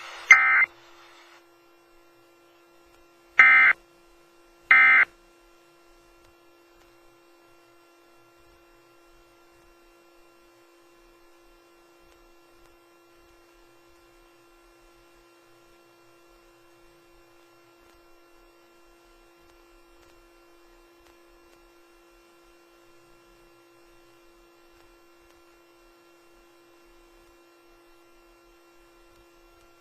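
Three short buzzing data bursts of the Emergency Alert System's end-of-message code in the first five seconds, then a faint steady electrical hum made up of several fixed tones.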